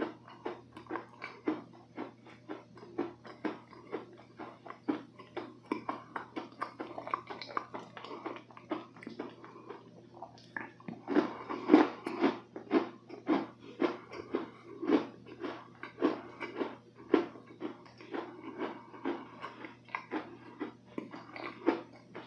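Close-miked chewing of a soft, moist cookie with the mouth closed, a steady rhythm of about two chews a second, louder and denser for a couple of seconds about halfway through.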